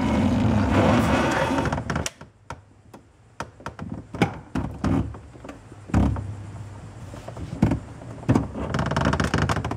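The hard plastic center console of a fourth-generation Pontiac Firebird Trans Am being worked loose by hand: a long scraping rub as it is pushed and lifted against the surrounding trim, then scattered knocks and clicks, and another scraping rub near the end.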